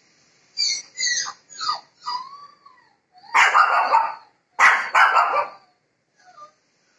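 Puppies yipping and barking: a quick run of short, high yips in the first two seconds or so, then two longer, harsher barks a little after the middle.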